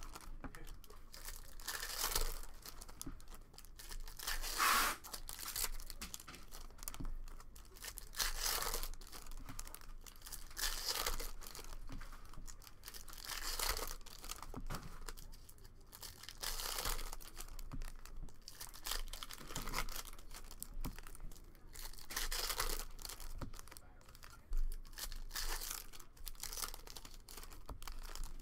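Foil wrappers of baseball card packs being torn open and crinkled by hand, a crackling rustle that comes in bursts every few seconds.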